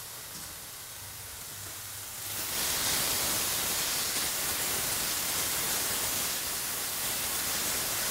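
Onion, bacon and rehydrated dried mushrooms sizzling in hot olive oil in a frying pan, a steady hiss that gets louder about two seconds in.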